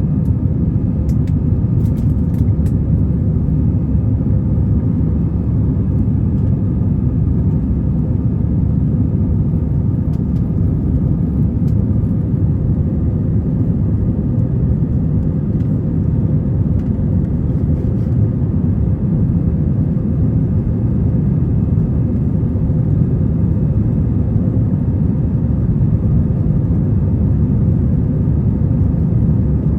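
Steady low rumble of an Airbus A321 airliner's engines and airflow heard inside the passenger cabin, with a few faint clicks near the start.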